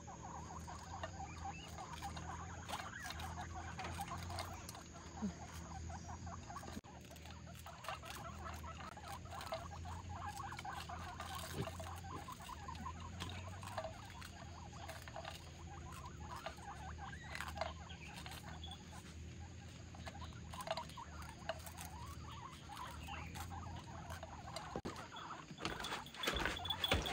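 Several guinea pigs eating from a plastic bowl: an irregular patter of small chewing and nibbling clicks, over a low steady hum.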